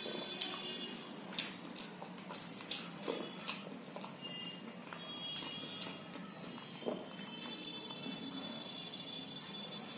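Eating sounds: chewing and mouth clicks of someone eating rice and curry by hand, with irregular sharp clicks and fingers mixing rice on a steel plate.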